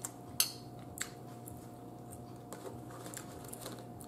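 Eating sounds at the table: a few sharp clicks of a fork against a plate in the first second, then soft scattered ticks as cooked blue crab shell is picked apart by hand. A faint steady hum runs underneath.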